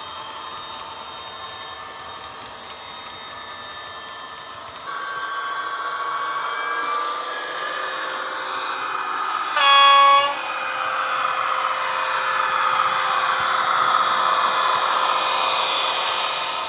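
Soundtraxx Econami DCC sound decoder playing a Class 66 diesel sound through a model locomotive's speaker: the simulated two-stroke EMD V12 engine runs steadily, gets louder about five seconds in, and a short horn blast sounds about ten seconds in before the engine runs on louder.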